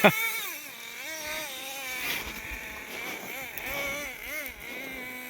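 Small nitro engine of a Traxxas T-Maxx RC truck running as it is driven, its high whine swooping up and down in pitch several times with the throttle.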